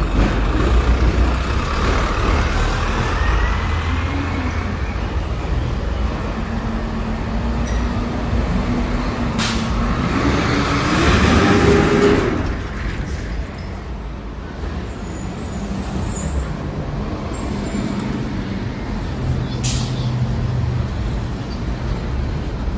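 Road traffic with a heavy vehicle's engine running low and steady. A little before halfway an engine note rises under a loud hiss that cuts off suddenly, like a bus or truck pulling away. There are two sharp clicks, one before the hiss and one near the end.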